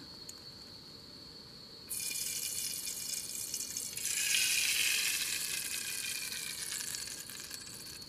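Cooking oil poured in a thin stream into a hot aluminium saucepan over an alcohol-burner flame, sizzling. The hiss starts suddenly about two seconds in, grows louder about four seconds in, then slowly fades.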